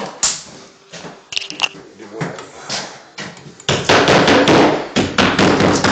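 Scattered taps and knocks, then a louder stretch of dense clattering starting about two-thirds of the way in, from handling closet shelving parts and brackets.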